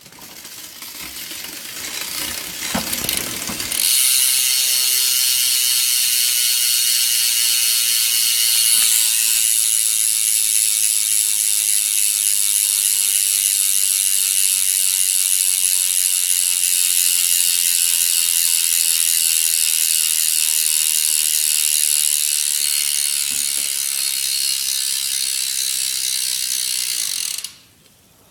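BMX bike hub freewheeling as the wheel spins, its pawls ratcheting so fast that the clicks merge into a really loud buzz. It builds up over the first few seconds, then holds steady while very slowly easing off, and stops suddenly near the end.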